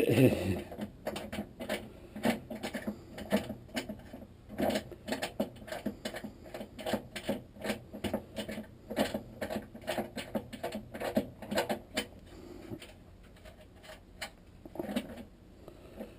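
Hand tools working on an automatic transmission: a run of quick, irregular metallic clicks a few times a second, like a ratchet being worked to loosen a bolt. The clicking stops about 12 seconds in.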